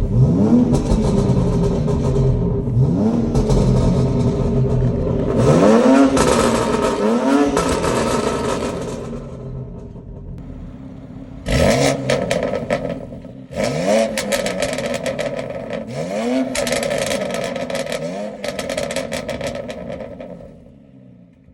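BMW X3 M's twin-turbo inline-six revved in about seven throttle blips, each rising and falling, with the custom Sport-mode burble map popping and crackling on lift-off through the catless race downpipes and OPF by-pass. The crackles grow denser in the second half and die away near the end.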